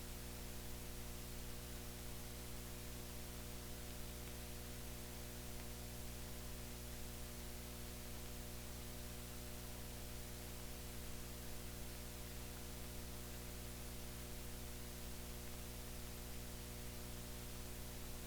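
Steady electrical mains hum with a layer of hiss, the background noise of a soundless stretch of old film transfer, with nothing else on the track.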